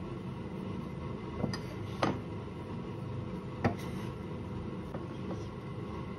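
Light clicks and taps of hands working flour into a greased glass loaf pan, with three sharp taps in the first four seconds, over a steady low hum.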